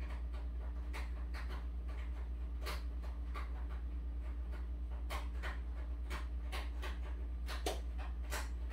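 A steady low hum with small irregular clicks and ticks, a few a second, over it.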